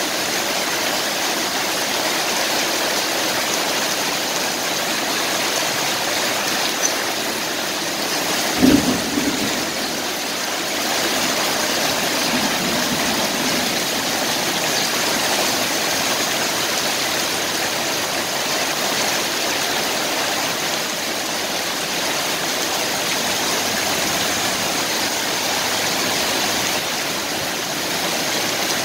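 Heavy rain pouring steadily onto a road, with vehicles swishing through the standing water. A single brief loud thump about nine seconds in.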